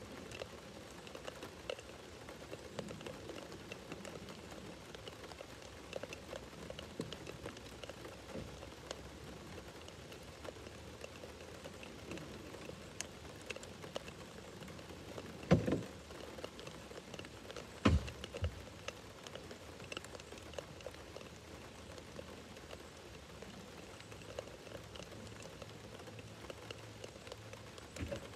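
Steady rain falling, with scattered drops ticking close by. Two sharp knocks about two seconds apart, a little past the middle, are the loudest sounds.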